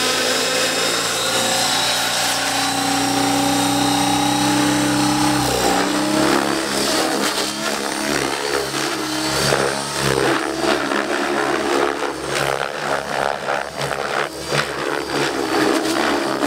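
Radio-controlled aerobatic helicopter, its rotor and motor first spinning with a steady even whine. About five and a half seconds in the steady tone breaks up, and through the aerobatic flight the sound rises and falls unevenly.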